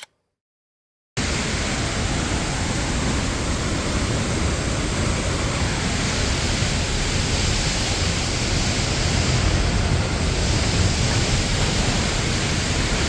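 La Paz Waterfall's steady rush of falling water, starting abruptly about a second in after silence.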